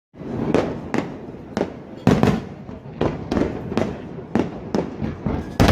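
Fireworks display: a series of sharp bangs from aerial shells bursting, about ten at uneven intervals over a steady rumble, the loudest near the end.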